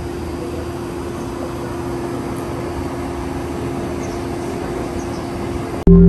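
Steady in-car noise while driving: a constant hum of engine and tyres on the road, heard from inside the cabin. It cuts off suddenly near the end.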